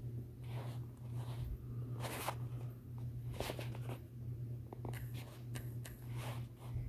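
Faint room noise in a small room: a steady low hum with scattered soft rustles and light handling noises, the clearest about two seconds in and again about three and a half seconds in.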